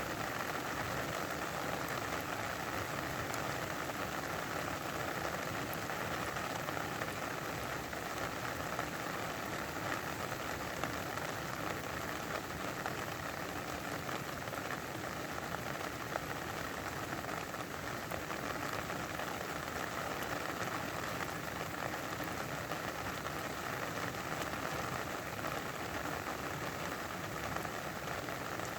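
Steady rain falling and pattering on a surface, an even hiss with scattered drop ticks.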